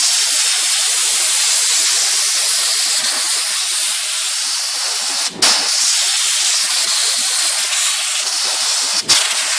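Compressed air hissing steadily as it blows loose dirt out of a typewriter's keyboard levers and type-bar comb, cutting off briefly about five seconds in and again near the end.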